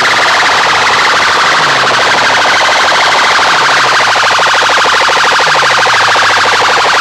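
Very loud electronic siren-like track played through a stack of horn loudspeakers on a DJ sound-box rig, with a falling bass sweep about every two seconds.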